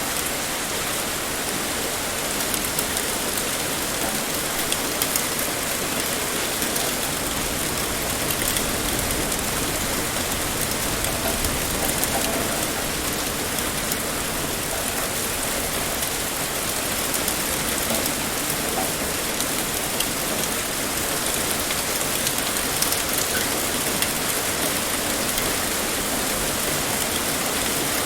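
Heavy rain pouring steadily, a dense even hiss with faint scattered drop ticks.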